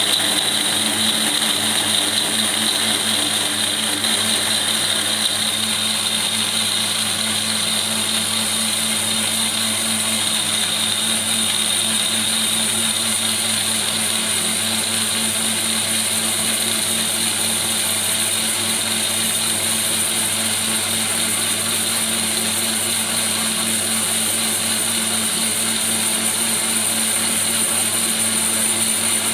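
Electric blender motor running steadily at full speed, blending a smoothie of curd, protein shake powder, honey, oats and dried cranberries, with an even motor hum under the whirring.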